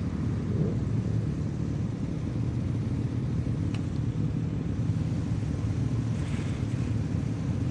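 Motorcycle engine idling nearby, a steady low rumble.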